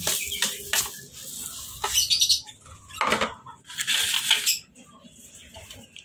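Sawdust bedding being poured and scattered from a plastic scoop onto a cage floor: several short bursts of rustling and scraping with light plastic knocks, quieter near the end.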